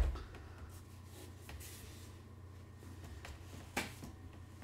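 Quiet handling of a canvas pre-mounted on a wooden frame as it is turned around, with faint rustling and a short tap about four seconds in, over a low steady hum.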